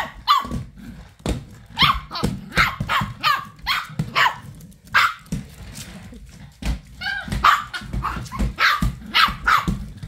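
Small dog barking in a rapid string of sharp barks at a stick vacuum cleaner, with a short lull around the middle.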